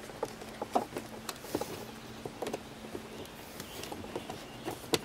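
Scattered small plastic clicks and taps as the interior door handle trim on a 2010 Mazda3's loosened door panel is worked free by hand.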